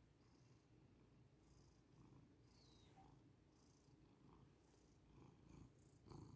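Domestic cat purring faintly, a continuous low rumble, while it kneads a blanket. A brief louder rustle of movement comes near the end.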